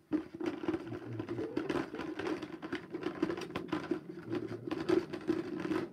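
Continuous scratchy rubbing with many small rapid clicks, dropping away right at the end.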